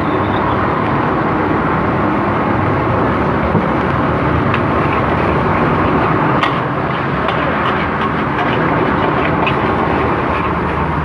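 Fried rice being cooked in a wok over a gas burner: a steady loud roar with scattered light metal clinks of the spatula.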